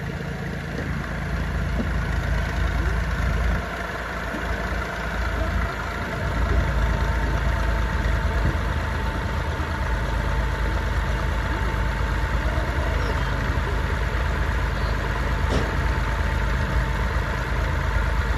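Small tractor engine running as the tractor is driven up a loading ramp onto a flatbed trailer. The engine note drops for a couple of seconds about four seconds in, then runs steady and a little louder.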